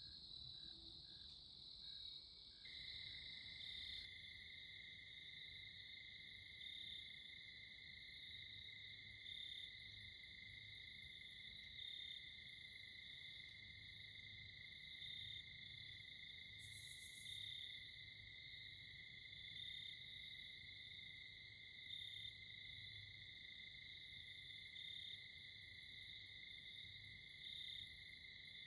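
Faint, steady chorus of crickets and other insects: a continuous high-pitched trilling, with a second, lower trill joining about three seconds in.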